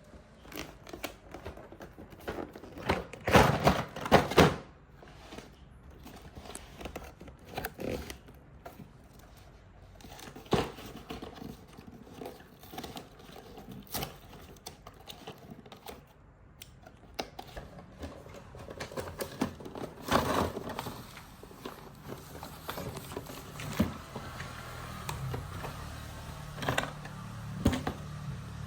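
Plastic toy track pieces and packaging being handled and fitted together: irregular clicks, knocks and crinkling, loudest in a cluster about three to four and a half seconds in.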